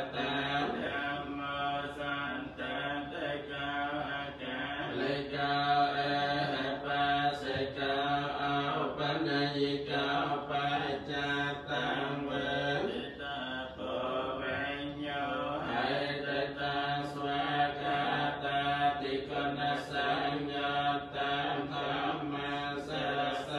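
Cambodian Buddhist monks chanting, a steady, low, continuous recitation without pauses.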